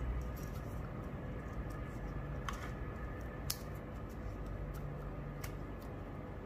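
A few light clicks and handling rustle as a DB9 serial cable plug is pushed onto the connector of a small adapter board, the sharpest click about halfway through. A steady low hum sits underneath.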